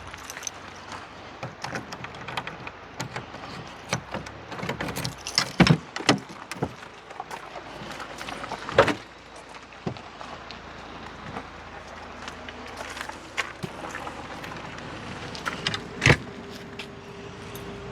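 Irregular clatter, clicks and knocks of gear being handled and rummaged through, with a few sharp thumps: a pair about a third of the way in, one near the middle and one near the end. A faint steady hum comes in near the end.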